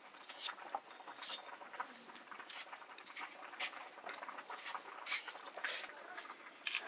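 Kitchen knife shaving the skin off a squash in short, irregular scraping strokes.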